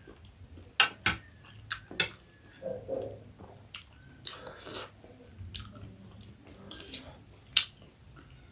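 Close-up mouth sounds of someone eating momo dumplings in soup: wet chewing with about eight sharp smacks spread through, and a longer noisy sound about halfway through.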